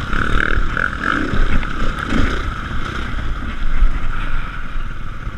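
Dirt bike engine running as the bike rides a rough trail, the revs rising and falling, with wind buffeting the camera microphone.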